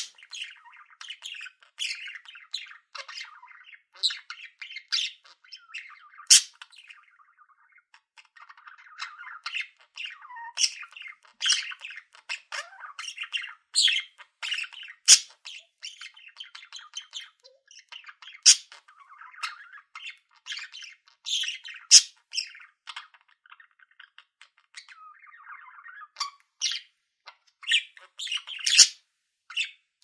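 Several budgerigars chattering: rapid chirps, warbles and squawks with hardly a pause, and a few sharp clicks among them.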